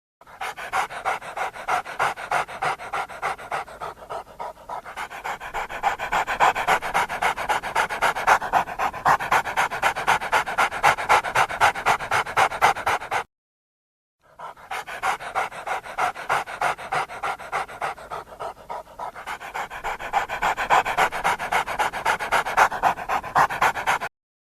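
A canine panting rapidly and evenly, about four breaths a second, in two long runs with a brief break between them.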